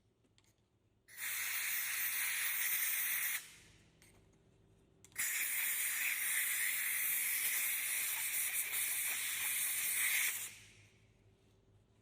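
Two long bursts of hissing pressurised spray, the first about two seconds and the second about five, from cleaning out and lubricating a freshly tapped M12 thread.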